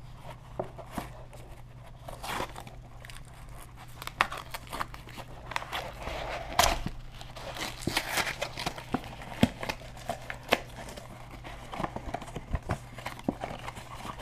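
Small cardboard mystery box being handled and opened: scattered rustles, scrapes and small clicks of the card flaps and packaging, with a few brief tearing or crinkling bursts.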